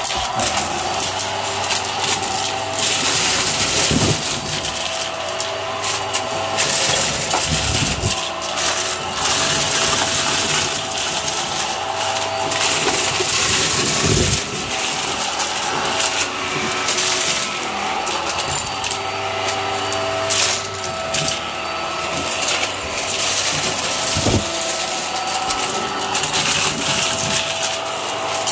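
Hart upright vacuum cleaner running steadily with a constant whine as it sucks up confetti, sequins and deflated balloons, the debris crackling and rattling through it. A few dull thumps come through over the steady running.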